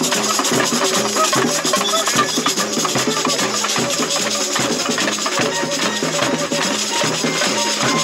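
A samba percussion band (bateria) playing a batucada rhythm, with low drums keeping a steady beat under busy higher percussion.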